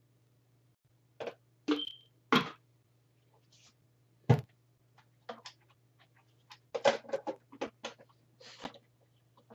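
Plastic blender cups, pitcher and lids being handled on a table: scattered knocks and clicks, one heavier thump about four seconds in, and a quick run of clattering near the end, over a faint low hum.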